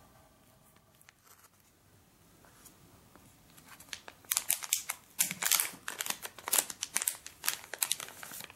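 Clear plastic bag crinkling and crackling as it is opened and a plush toy is pulled out of it, starting about four seconds in as rapid, irregular crackles.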